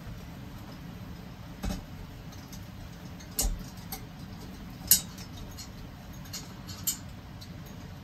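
A metal utensil clinking lightly against a stainless steel pot, a handful of scattered taps with the loudest about halfway through, over a low steady background.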